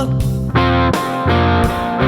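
Background music: a rock song led by a distorted electric guitar, with chord changes about half a second and a second and a quarter in.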